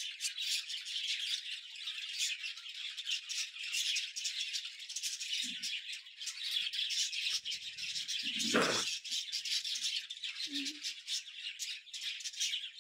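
A flock of small cage birds, budgerigars among them, chattering and chirping continuously in a dense, high twitter. A brief louder sound stands out about eight and a half seconds in.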